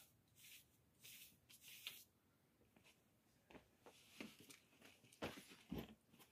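Near silence broken by faint rustles and scuffs, then a few soft knocks and two sharper thumps about five seconds in: a climber getting down and settling onto a foam crash pad under a granite boulder.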